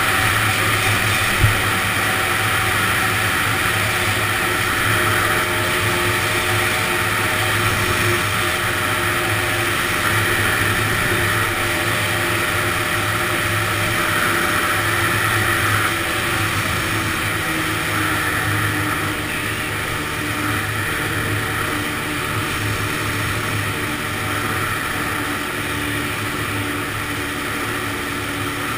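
Honda ATC 250R three-wheeler's two-stroke single-cylinder engine running steadily under way, its pitch easing a little past the halfway point. A short knock about a second and a half in.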